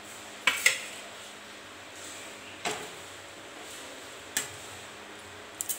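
A metal spatula clinking against the side of a metal kadai while stirring a simmering fish curry: a quick pair of knocks about half a second in, single knocks in the middle, and another quick pair near the end.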